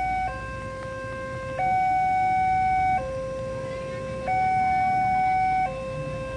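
Railway level-crossing warning alarm sounding a two-tone hi-lo signal, switching between a higher and a lower tone about every 1.4 seconds, the warning that a train is approaching the crossing.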